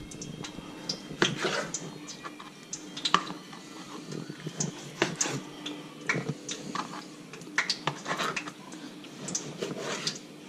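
Long knife cutting a tripletail fillet into chunks on a plastic cutting board, the blade clicking and tapping against the board at irregular intervals.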